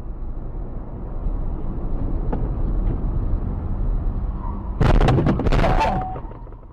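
Steady road and engine noise inside a car's cabin, then about five seconds in a loud impact as the car runs into the back of a minivan, with several sharp cracks and rattles over about a second before it dies away.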